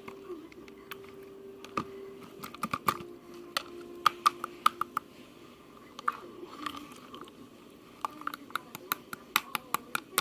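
Irregular close-up sharp clicks and crunches, coming in clusters, over a faint steady hum during the first half.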